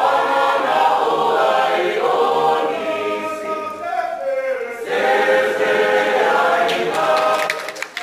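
Mixed choir of men's and women's voices singing unaccompanied in harmony. The song closes near the end, and clapping starts as it fades.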